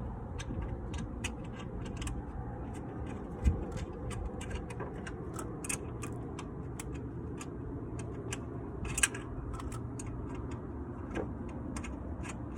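Light, irregular metallic clicking and ticking of hand tools and suspension parts being handled while a shock absorber is fitted, with two sharper knocks, one a few seconds in and one about two-thirds of the way through.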